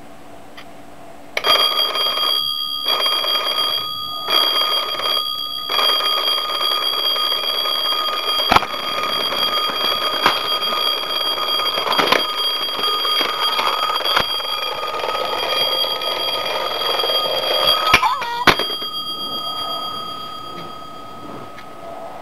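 Twin-bell alarm clock ringing, starting about a second in and going on steadily after a few short breaks, with several sharp knocks as it is grabbed; the ringing stops abruptly about 18 seconds in after a couple of knocks.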